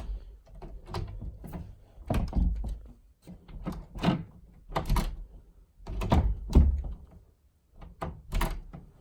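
A door being pushed shut and worked over and over: a string of knocks and latch clicks, in clusters a second or two apart. The new keypad lock's latch is not lining up with the strike, so the door does not latch cleanly.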